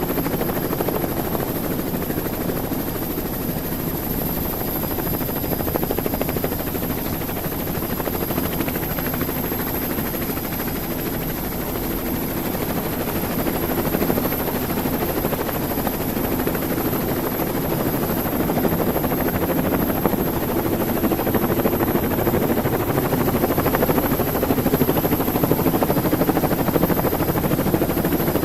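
Helicopter in flight: a steady drone of rotor and engine noise, with a thin high whine running through it.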